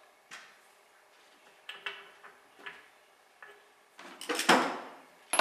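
Workshop handling noises: a few faint clicks, then about four seconds in a louder metallic clatter of tools being picked up and handled at the vise, with a second clank near the end.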